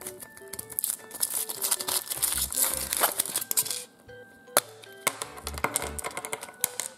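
Foil wrapper crinkling and tearing as it is peeled off a chocolate egg, over background music with a steady beat. About four and a half seconds in, a sharp snap as the hollow chocolate shell is broken open, then a few light clicks from the plastic toy capsule inside.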